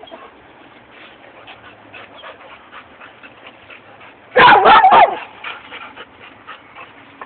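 A dog lets out one loud, wavering whine-yelp lasting under a second, a little over four seconds in, against faint rustling.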